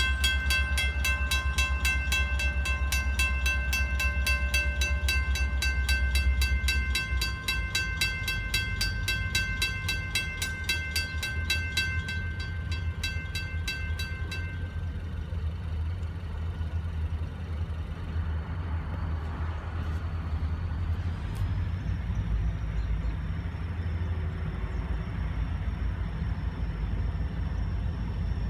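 Railroad crossing bell ringing in rapid, evenly spaced strokes, which stops about halfway through once the gates are down. After that, a low rumble from the approaching diesel train continues, joined later by a steady high whine.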